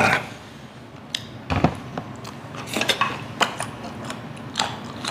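Tableware clatter at a meal: chopsticks and glass mugs clinking and knocking against plates and the table, several separate clicks with one louder knock about one and a half seconds in, and chewing between them.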